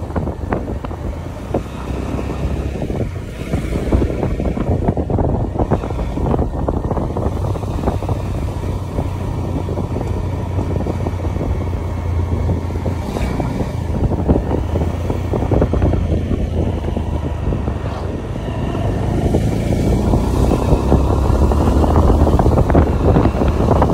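Wind rushing and buffeting on the microphone of a moving motorcycle, with the machine's engine and road noise running underneath. It grows louder near the end.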